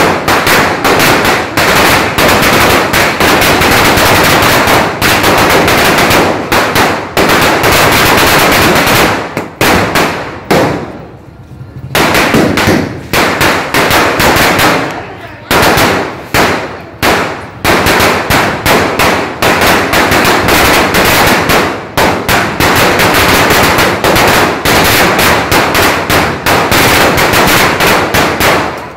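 A Gnanavel Fireworks 5000-wala string of firecrackers bursting in a rapid, continuous chain of bangs. The chain thins to a brief lull about eleven seconds in, then carries on just as fast.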